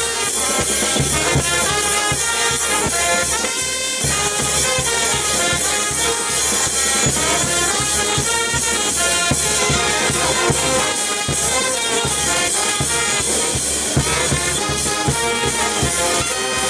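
A band with brass playing a lively tune over a steady, quick beat of drums and cymbals.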